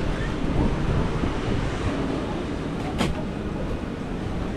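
Wind buffeting the microphone as a steady low rumble, over faint background voices, with one sharp click about three seconds in.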